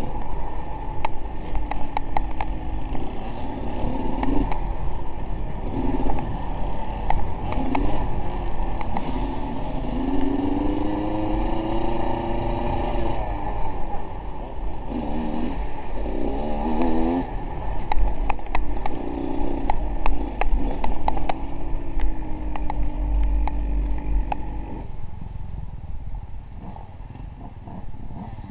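A motor vehicle engine revving up and down again and again, with many sharp clicks and rattles over it; the engine note dies away near the end.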